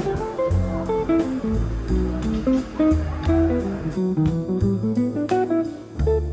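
Background music: a plucked guitar melody over a bass line and a steady beat.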